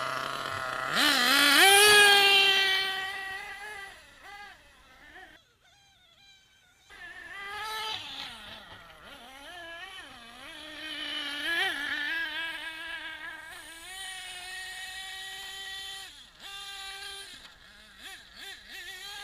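Small two-stroke nitro engine of a Losi 8ight-T 1/8-scale RC truggy, revving up and down with the throttle, its high whine rising and falling constantly. The whine is loudest near the start, dies away almost completely for a moment about a third of the way in, then returns.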